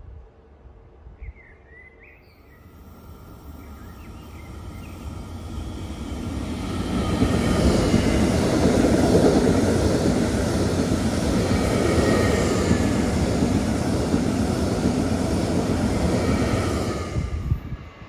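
TILO electric multiple-unit train running past along the station track: its rolling and running noise swells over several seconds, stays loud for about ten seconds with a faint whine mixed in, then cuts off suddenly near the end. A few faint bird chirps come before the train noise builds.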